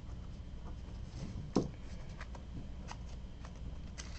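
Faint rustling and light clicks of trading cards being handled by hand, with one sharper tap about a second and a half in, over a steady low hum.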